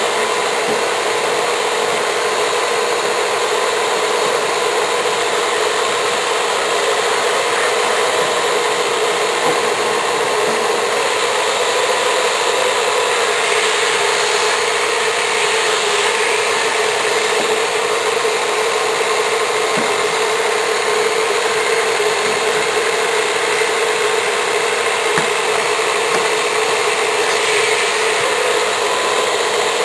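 Vacuum cleaner running steadily with a constant whine, its nozzle sucking lint and dust off a refrigerator's condenser coils.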